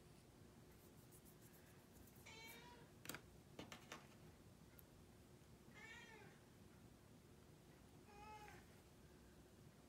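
A house cat meowing three times: short, faint calls a few seconds apart, with a few small clicks in between.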